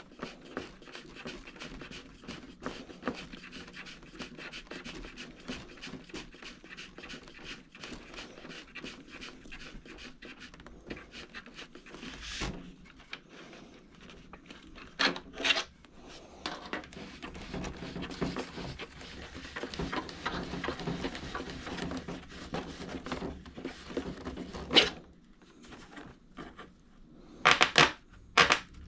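Hands working small screws into the plastic and foam parts of an RC airplane with a screwdriver: steady fine scratching and rubbing, with a few sharper clicks and knocks about halfway through and near the end.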